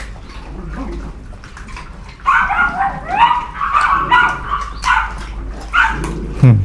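Several dogs yipping and whining in a cluster of short, high calls from about two seconds in to about five seconds, with another yelp near the end, while they compete over food. Small clicks sound throughout.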